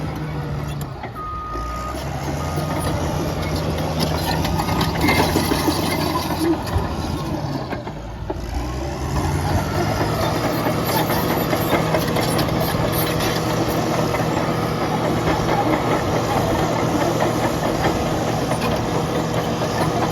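Caterpillar D6N bulldozer's Cat diesel engine running as the machine works, its note dipping briefly twice in the first half and then holding steady.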